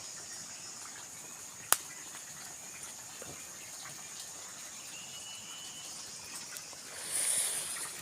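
Steady high-pitched insect drone, with a single sharp click a little under two seconds in and a brief hiss near the end.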